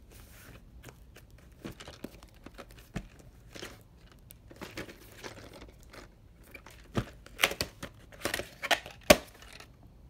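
Plastic clamshell VHS case being handled and opened: scattered light clicks and rustles, then a run of louder plastic clacks in the last few seconds, the loudest about nine seconds in.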